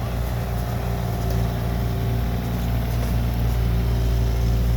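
Engine running steadily at a constant speed, a low even hum with no change in pitch.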